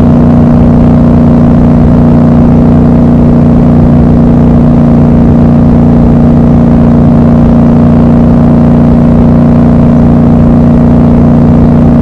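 Triumph Scrambler 1200 XC's 1200 cc parallel-twin engine running at a steady cruise, an even drone that holds one pitch with no revving or gear changes.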